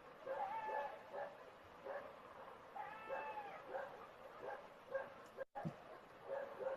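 Animal calls: a run of short, repeated yelps with several drawn-out wailing calls that rise and then fall in pitch.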